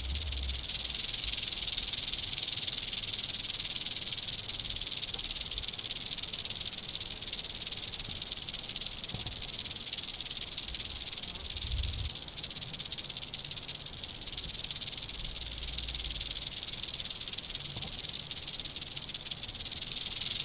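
Western diamondback rattlesnake rattling its tail in a steady, unbroken buzz: the warning of a disturbed, defensive snake.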